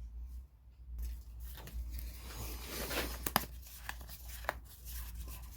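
Handling noises at a workbench: rustling and scraping, with scattered sharp clicks.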